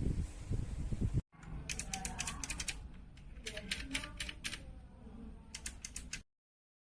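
Keys fitted with Kailh Box White clicky switches being typed in three quick bursts of sharp clicks. A low rumble comes first and cuts off abruptly just over a second in, and the sound stops dead shortly before the end.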